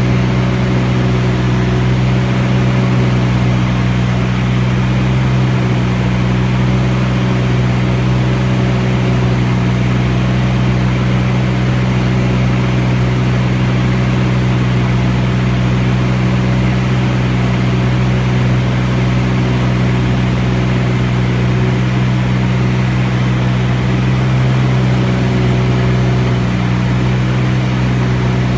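T-34 Mentor's piston engine and propeller running in a steady drone, holding an even pitch and level throughout.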